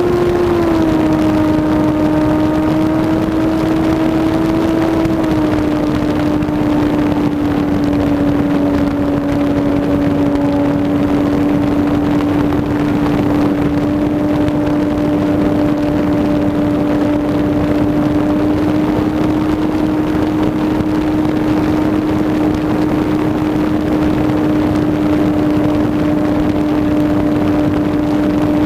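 Electric motor and propeller of a ParkZone T-28 Trojan RC plane whining steadily in flight over the rush of wind, as heard from a camera on the plane itself. The pitch steps down a little twice, about a second in and again about five seconds in, as the throttle is eased, then holds steady.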